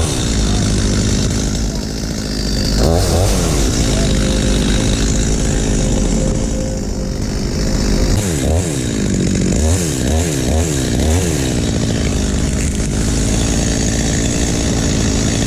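Chainsaw engine running at speed and being revved up and down: one rev about three seconds in, then a quick run of four or five revs around the middle, before it settles back to steady running.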